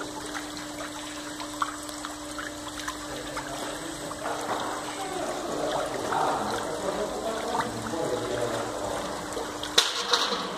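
Water swirling and splashing in a stainless steel whirlpool tank, with a steady hum underneath. A sharp click about ten seconds in, after which the hum stops.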